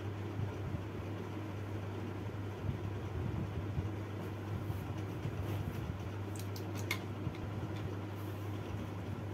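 A steady low hum over a constant background hiss, with a few faint ticks about seven seconds in.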